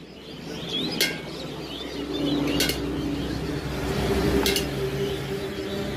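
A metal spoon clinking against a steel tin and containers as jhal muri ingredients are scooped: three sharp clinks with a short ring, spaced about one and a half to two seconds apart.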